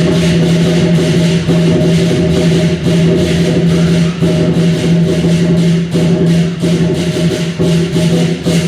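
Loud music with sustained low tones under fast, steady percussion strokes.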